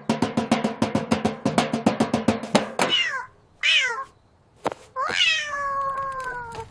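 Rapid drum beats in music for the first three seconds, then a cartoon cat meowing: two short meows falling in pitch, and a long drawn-out meow near the end.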